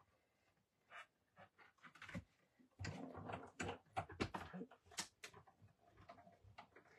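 Hand-cranked die-cutting and embossing machine pressing a plate stack with a 3D embossing folder through its rollers: faint scattered clicks and creaks, busiest from about three to five seconds in.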